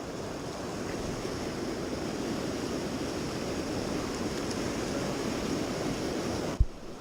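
Steady rushing of stream water over rocks, with a single thump near the end.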